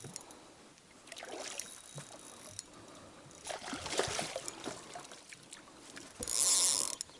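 Water sloshing and splashing against a small fishing boat, with scattered small knocks. A short, loud hissing splash comes near the end.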